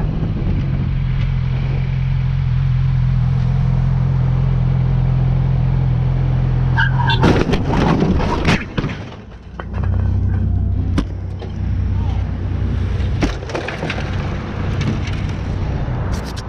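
Sport motorcycle engine running steadily at road speed with wind rush. About seven seconds in comes a crash: a burst of loud scraping and clattering impacts as the bike goes down and slides along the pavement. Afterwards the engine keeps running at a lower, idling pitch, with a few scattered knocks.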